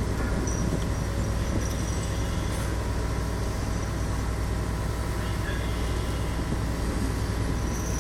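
Steady low drone of heavy diesel machinery running at an even pitch, with a few faint high clinks over it.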